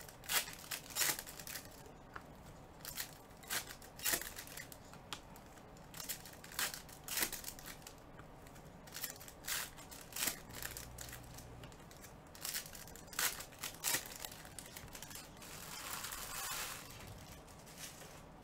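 Foil trading-card pack wrappers being torn open and crinkled by gloved hands, a run of short, sharp crinkles and snaps, with a longer rustle about sixteen seconds in.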